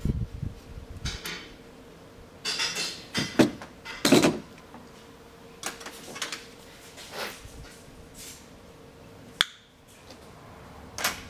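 Hard parts being handled over a car's engine bay: a string of knocks and clatters, loudest from about two to four seconds in, and a sharp click near the end, over a faint steady hum.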